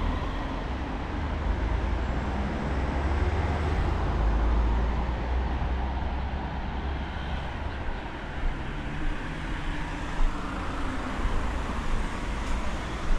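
City street traffic noise: a steady low rumble from passing cars and other vehicles, swelling a little a few seconds in, with a few short knocks in the second half.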